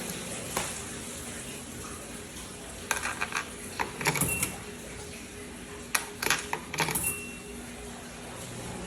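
Clicks and knocks of a laundry dryer's door and controls being worked, with two short electronic beeps from the machine's panel, one about four seconds in and one near the end.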